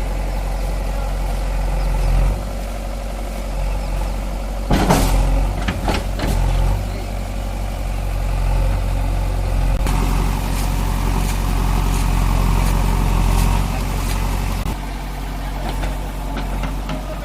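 JCB backhoe loader's diesel engine running steadily, with a few sharp knocks about five to six and a half seconds in.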